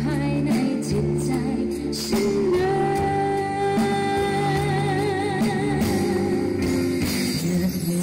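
Live band music with a woman singing into a microphone over electric guitar. About two and a half seconds in she holds one long note with vibrato for about three seconds.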